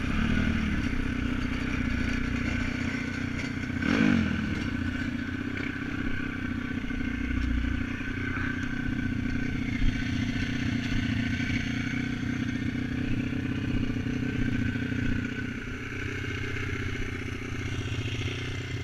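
Dirt bike engine running steadily, with no revving, and a single knock about four seconds in.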